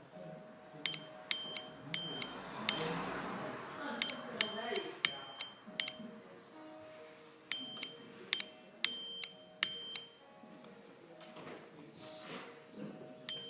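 Morse code sent as a series of short and longer beeps, each starting and ending with a sharp click, in groups with pauses between letters, spelling out a happy birthday greeting.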